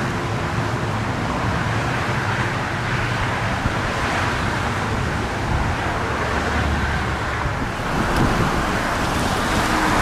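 Steady road and wind noise from a car driving along.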